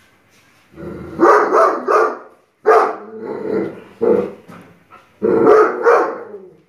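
Young Great Dane barking in alarm at a statue it is afraid of: loud barks in several bouts, three quick ones about a second in, then single barks, then two more near the end.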